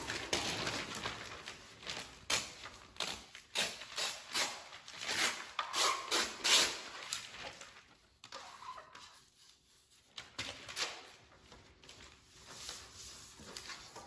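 Newspaper rustling as a sheet is handled, folded and pressed into a bird cage's floor tray: a quick run of crinkles through the first half, then fewer and quieter ones.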